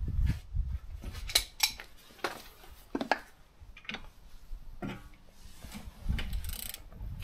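Scattered metallic clinks and knocks of a socket and long ratchet handle being fitted onto a Trabant 601 front hub nut.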